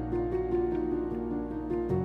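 Background music: a soft instrumental track with sustained notes and a light, even beat.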